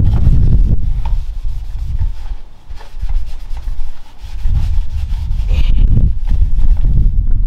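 A rag rubbing and wiping over the front end of a car, in two spells of low, scuffing strokes with a quieter pause between them.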